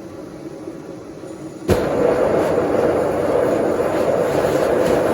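Propane forge with a ribbon burner and blower being started: a rising rush of air, then the burner lights with a sudden whoomp a little under two seconds in and settles into a loud, steady burner-and-blower rush.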